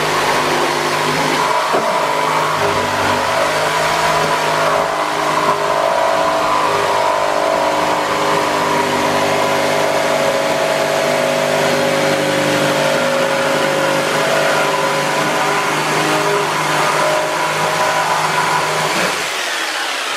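Corded jigsaw running steadily as its blade cuts a round hole through pallet-wood boards; the motor stops about a second before the end.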